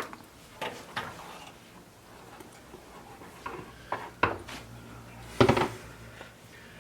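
Scattered light clicks and clinks of small hard parts being handled as the pre-filter is worked out of a tankless water heater's water inlet, with the loudest clatter about five and a half seconds in.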